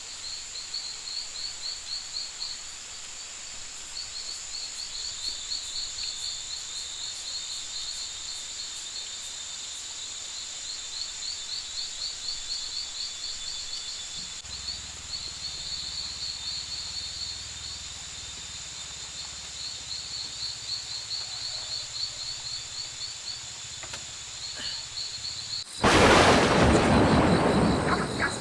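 Rainforest insects chirping in rapid pulsing trills over a steady high drone, with a faint low rumble coming in about halfway. Near the end a sudden loud thunderclap crashes in and fades over a couple of seconds.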